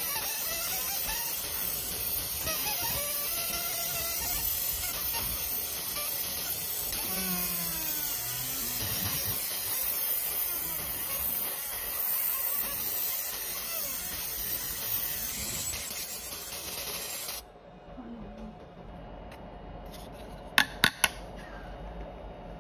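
Fiber laser marker engraving a black metal business card: a steady high hiss that cuts off suddenly about 17 seconds in as the marking finishes. Three sharp clicks follow near the end.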